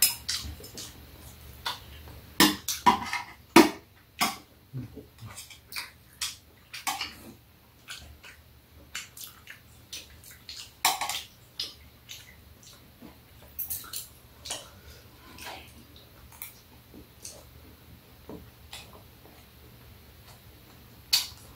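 Sounds of eating: irregular clicks and taps of metal chopsticks against a stainless steel platter, mixed with chewing and mouth sounds, with a few louder clacks.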